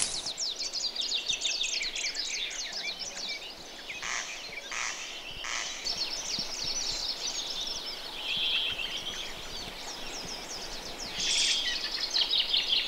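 Small songbirds singing and chirping, many quick high chirps overlapping, with three short louder calls about four to six seconds in.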